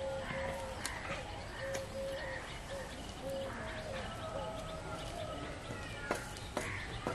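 A dove cooing, short low coos repeated over and over, with other small birds chirping. A couple of sharp clicks come near the end.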